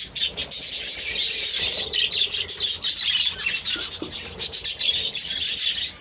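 A colony of small cage birds chirping constantly, with many short calls overlapping into a continuous chatter.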